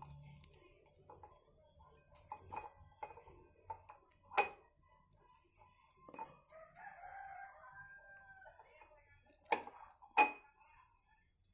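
Scattered sharp clicks and knocks as a lime is squeezed by hand into a glass, the loudest about four seconds in and twice near the end. A faint rooster crow, one call of about two seconds, comes several seconds in.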